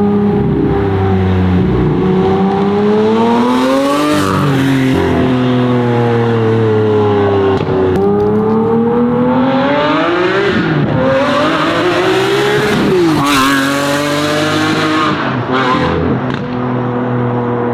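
A car engine running loud under load, its pitch climbing and dropping again several times as it is accelerated and let off, with sharp drops in pitch at about four and thirteen seconds in.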